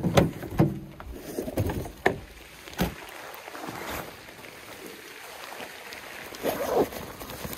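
Waterproof waders rustling and swishing as they are pulled on, with several knocks in the first three seconds and another burst of rustling near the end.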